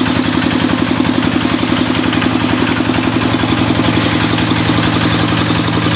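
Small engine driving a grass and banana-stem chopper machine, running steadily at an even speed with a fast, regular firing pulse.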